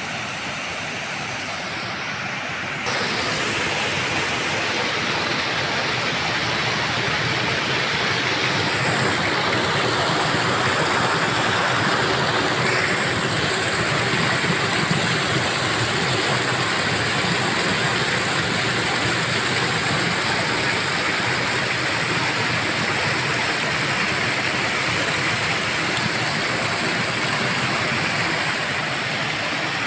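Water pouring over the stepped concrete drops of a small dam: a steady rushing and splashing that gets louder about three seconds in.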